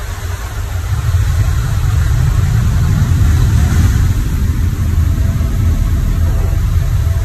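Light aircraft engine droning with wind rushing in through the open jump door, heard from inside the cabin; it grows louder about a second in and holds steady.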